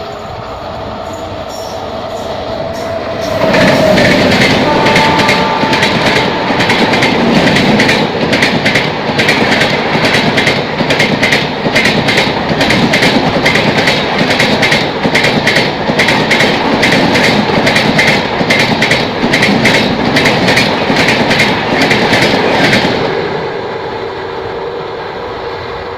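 A WAP-7 electric locomotive hauling LHB coaches passes at high speed without stopping, its horn sounding as it approaches. About three seconds in, the train rushes past with a rapid, even clickety-clack of wheels over the rail joints that lasts about twenty seconds, then fades as the last coaches pass.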